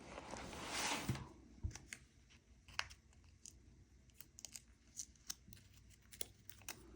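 A short rasping tear as the printed label tape is torn off across the label maker's cutter, then faint scattered clicks and crinkles as the paper label is handled.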